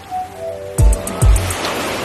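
Background electronic music: two deep kick-drum beats about half a second apart, over held synth notes and a hissing wash.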